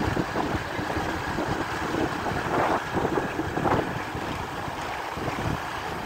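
Wind rumbling on the microphone over the steady wash of small waves breaking on a sandy beach.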